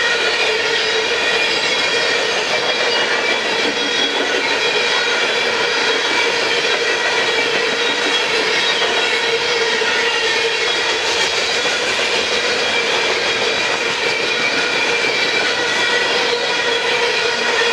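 Coal train's hopper cars rolling past on steel wheels: a steady, even rolling noise with several steady ringing tones held over it.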